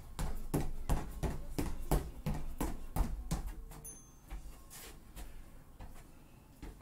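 Sneakered feet landing on foam gym mats in a quick jumping rhythm, about three landings a second, fading out about three and a half seconds in. About four seconds in, a short high beep from the interval timer marks the end of the work interval.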